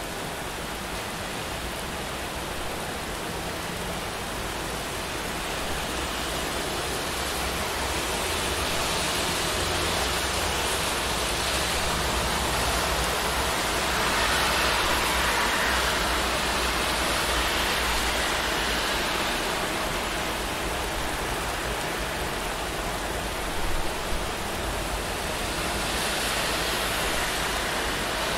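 Steady rain falling in a city street, with traffic on the wet road. The sound swells as vehicles hiss past, most strongly around the middle and again near the end.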